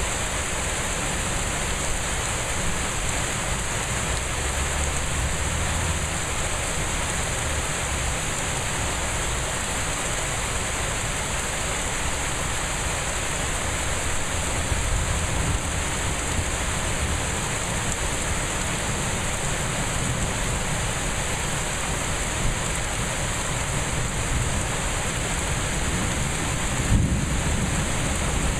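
Torrential thunderstorm rain pouring steadily, a constant hiss, with low thunder rumbling at times. A brief sharp knock near the end.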